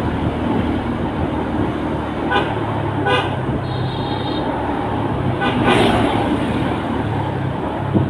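Short toots of a Basuri telolet bus horn, about two and a half and three seconds in, over a vehicle's engine running steadily with road noise.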